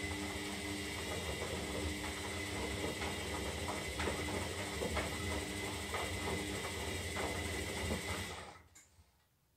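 Zanussi Lindo 300 front-loading washing machine turning its drum during a synthetic wash cycle: a steady motor hum and whine with light knocks about once a second, stopping about eight and a half seconds in as the drum pauses between tumbles.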